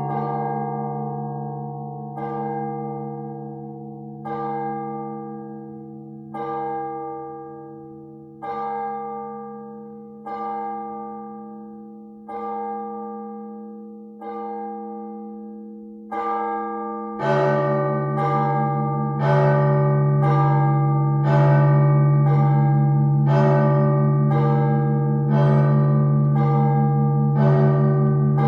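Church bells ringing: a bell struck about every two seconds, each stroke dying away over the long hum of a deep bell. About 17 seconds in, the deep bell is struck again and the strokes come louder, about one a second.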